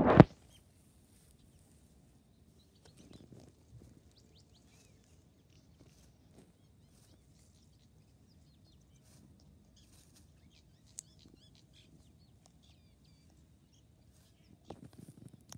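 Hens pecking and scratching at bread in grass close to the microphone: a loud thump at the very start, then a few soft pecks and rustles, a cluster of them near the end. Faint high chirps of small birds come and go in the background.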